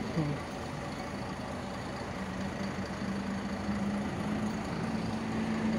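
Isuzu city bus engine idling at a standstill, a steady low hum.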